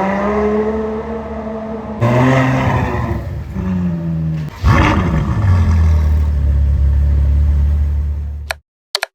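Ferrari 812 Superfast's naturally aspirated 6.5-litre V12 accelerating hard, its pitch climbing and breaking at each gear change, about two seconds in and again near five seconds. It then settles into a steady low rumble that cuts off abruptly near the end.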